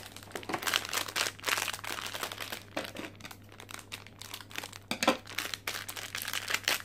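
Crinkling of a silver foil blind-box bag as it is handled, snipped with scissors and pulled open: an irregular run of crackles and rustles.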